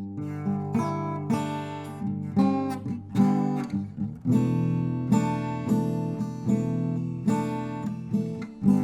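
Acoustic guitar strumming chords, a new strum every second or so, each chord ringing on until the next.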